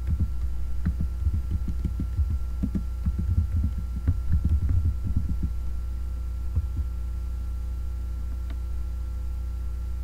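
Computer keyboard being typed on: a quick run of dull, low keystroke thumps for about the first five and a half seconds, then a couple of single key taps. A steady low electrical hum runs underneath.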